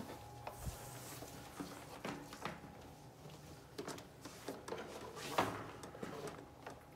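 Quiet room with a faint steady hum, broken by scattered light clicks and knocks of handling and movement, the sharpest about five and a half seconds in. The vacuum cleaner is not running.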